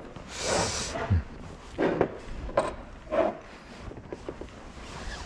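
Brass sewer-jetter nozzles handled on a workbench: a brief rustle in the first second, then a few light knocks as the nozzles are moved and set down.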